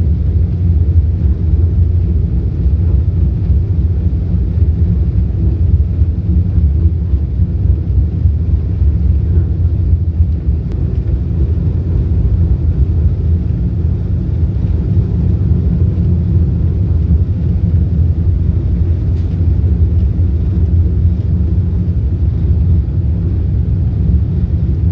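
Vande Bharat Express electric multiple-unit train running between stations, a steady, loud low rumble.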